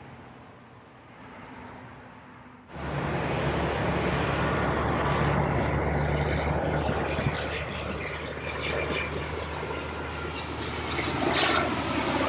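Jet airliner on landing approach passing close, a loud steady engine roar with a high whine over it that starts abruptly about three seconds in.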